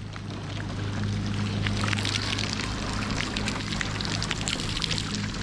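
Boat motor running steadily under way, with water rushing and splashing along the hull that builds up about a second in.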